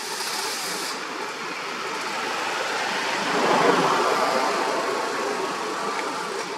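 Motor vehicle passing: a steady rushing noise that swells to a peak a little past halfway and then fades.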